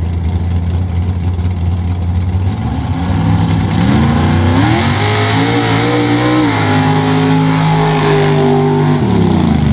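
A mud-racing vehicle's engine idling low, then revving up about three seconds in and held at high revs, with a slight drop in pitch midway, before falling off near the end. A rushing hiss runs along with the high revs.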